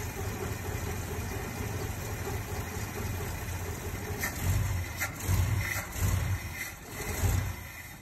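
1969 Ford F250's engine, with an Edelbrock four-barrel carburetor, idling, then surging and stumbling in loud, uneven pulses about halfway through. It cuts out abruptly at the very end, stalling under load on a carburetor that is pretty tired.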